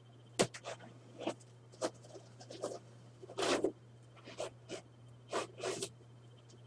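Handling noise: scattered knocks, taps and a few brief scrapes at irregular intervals, over a steady low electrical hum.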